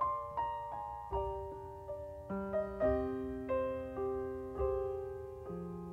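Slow, gentle solo piano music: single notes and chords struck about every half second, each left to ring and fade, over slowly changing bass notes.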